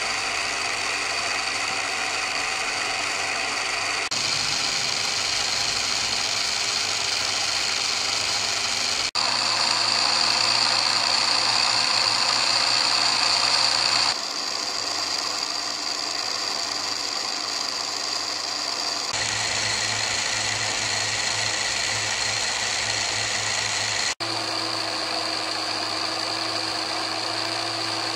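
Small electric motor of a Lima H0 model train running with a steady whir. Its pitch and tone change in steps every few seconds, with two momentary dropouts.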